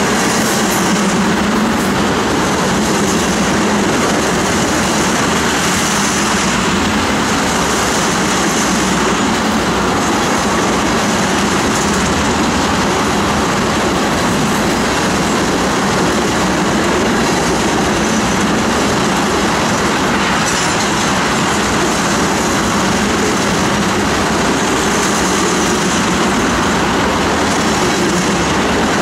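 Freight train of ethanol tank cars rolling past close by: loud, steady wheel-on-rail noise, with a high hiss that swells and fades every few seconds.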